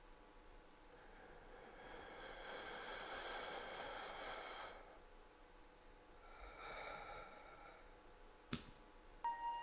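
A sleeping man's slow, heavy mouth breathing: one long breath of about four seconds, then a shorter one. A single sharp click comes near the end, over a faint steady hum.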